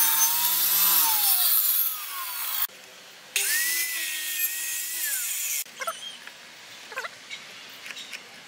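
Handheld circular saw making two 45-degree cuts through pallet wood boards, each with a steady motor whine that sags as the blade bites. The first cut stops just under three seconds in. The second starts about half a second later and lasts about two seconds. After it come a few light knocks of boards being handled.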